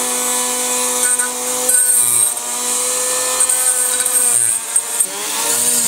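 Dremel rotary tool spinning a small sanding drum against a yellow plastic part, grinding out a hole: a steady high motor whine with a hiss of sanding. Its pitch dips and wavers about five seconds in.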